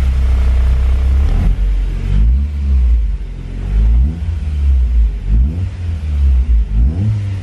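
Freshly built Honda B18C Type R four-cylinder, running through an aftermarket header and exhaust, idles and is then revved gently up and down about four or five times. It is the engine's first run, and the revs are kept low to break in the new rings.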